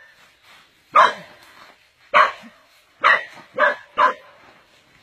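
A dog barking five short, sharp times, spaced about a second apart at first and closer together near the end.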